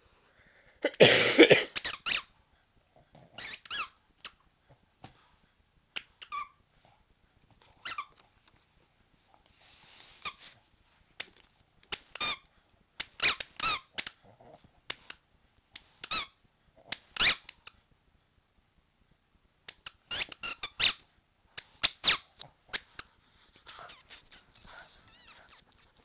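A Boston terrier chewing a squeaky ball, squeezing out short squeaks in irregular bursts every second or so, the loudest cluster about a second in.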